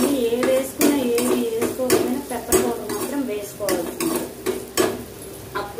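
A steel ladle stirring and scraping capsicum pieces in a stainless steel kadai, with irregular clinks of metal on metal over a soft sizzle of frying.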